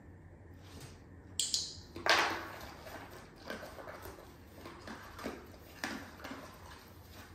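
A dog rooting through crumpled packing paper in a cardboard box: paper rustling and crinkling in short bouts, loudest about two seconds in.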